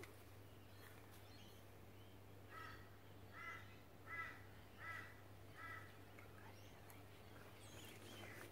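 A bird calling five times in a row, about one call every three-quarters of a second, faint over a steady low hum.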